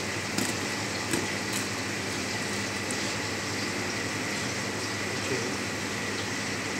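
Steady background hiss with a low hum and a thin high whine, and a few faint ticks of a knife working against a plastic cutting board in the first two seconds.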